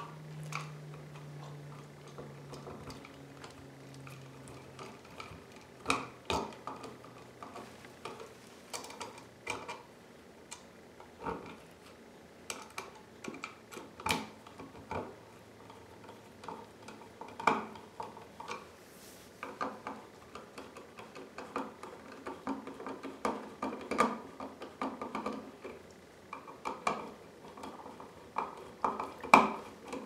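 Hand screwdriver turning the mounting screws of a new duplex wall outlet into the electrical box: irregular small metallic clicks and scrapes, bunched into short runs.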